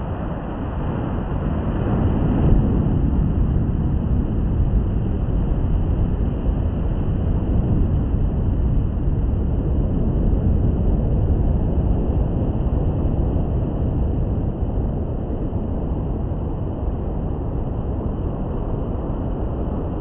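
Sea waves washing onto the beach: a steady low rush of surf that swells about two seconds in, then ebbs and builds slowly.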